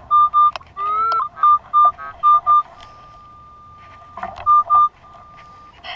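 Minelab CTX 3030 metal detector giving its target tone: a run of short, high beeps about four a second, broken by a steady held tone near the middle, as the coil sweeps a coin target that the detectorist reads as a wheat cent (ID 12-42).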